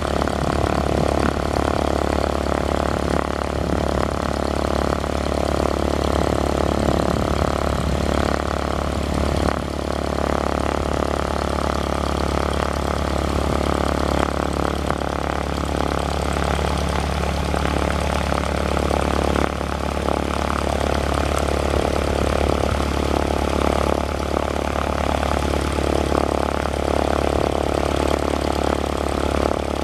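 A 1976 Cessna 150M's Continental O-200 four-cylinder piston engine idling steadily, its propeller turning, with the aircraft standing still.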